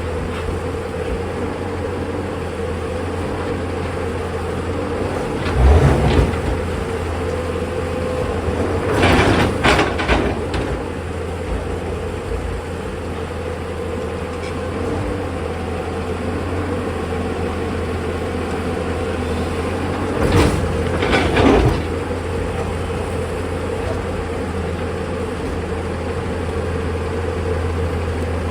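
Tata Hitachi excavator's diesel engine running with a steady low drone and a constant hum. Three short, louder, rough spells break in: about six seconds in, around ten seconds, and again near twenty-one seconds.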